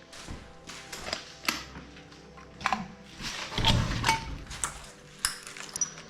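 Footsteps over a debris-strewn floor, with irregular clicks, clinks and knocks, the busiest about three and a half to four seconds in.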